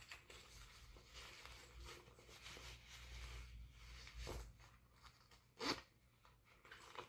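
Faint rustling of fabric winter gloves being handled and pulled on, with two brief louder rustles a little past the middle.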